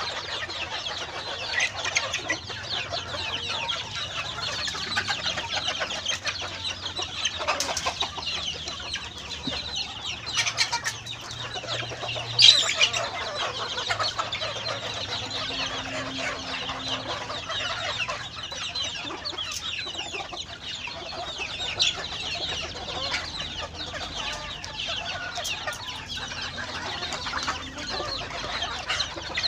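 Flock of crossbred bantam chickens clucking and chattering continuously, with one louder, sharp sound about twelve seconds in.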